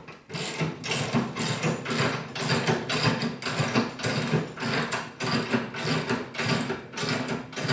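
A jack being worked by hand to raise a motorcycle, an even train of short metallic clanks and ratchet-like clicks at about two strokes a second.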